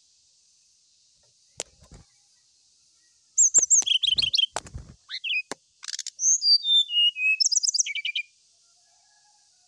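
Brown-chested jungle flycatcher singing, starting about three seconds in: quick high chirps and trills, a run of clear notes stepping down in pitch, and a final trill, mixed with a few low thumps.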